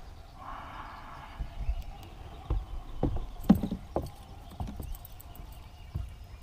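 A brief rustle, then a run of irregular hollow knocks and thumps on a fishing boat's deck, loudest about three and a half seconds in.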